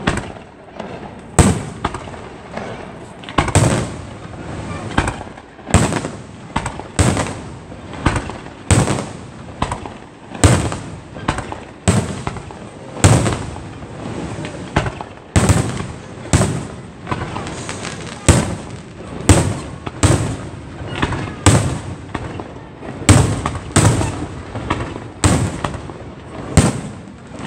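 Aerial fireworks display: shells bursting in quick succession, a sharp bang roughly every second, each trailed by a rolling echo.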